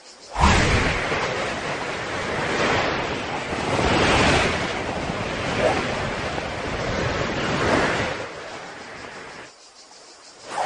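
A fast, muddy river rushing over rocks: a steady, loud rush of water noise that swells a few times. It starts suddenly about half a second in and stops abruptly about a second before the end.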